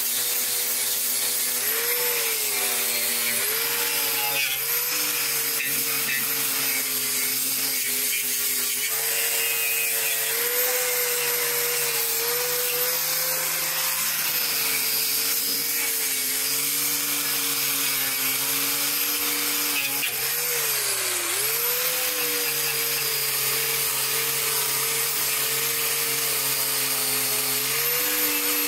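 Angle grinder cutting out rusted body metal from a car's wheel arch, its motor running continuously with the pitch dipping and recovering as the disc bites, most deeply about two-thirds of the way through.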